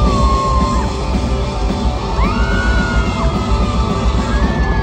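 Live rock band playing loudly in a large hall, with electric guitar and drums, and high screams from the audience rising over the music.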